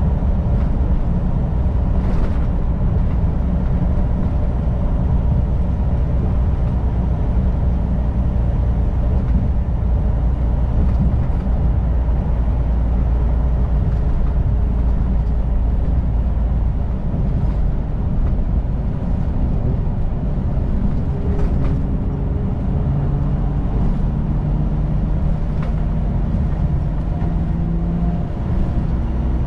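Semi-truck diesel engine and road noise heard from inside the cab while driving at steady speed, a continuous low drone. The engine's pitch climbs slowly over the last third, then drops near the end.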